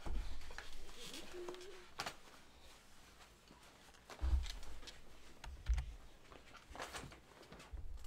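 Low bumps and light clicks of people shifting about and handling things near the microphone, with the heaviest bumps a little past four and nearly six seconds in.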